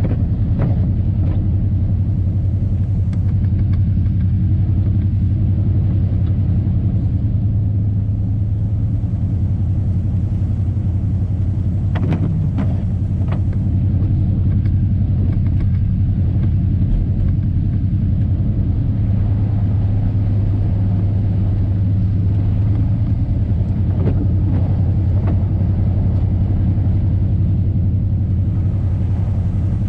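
Old Chevy pickup driving, heard from inside the cab: a steady low engine and road drone, loud enough to bury a voice, with a couple of faint knocks partway through.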